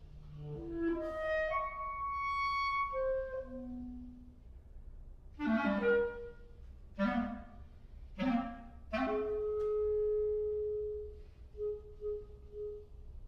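Solo clarinet playing a contemporary concert piece: a winding phrase that climbs high and falls back, then four sharply accented notes, a long held note, and three short soft notes near the end.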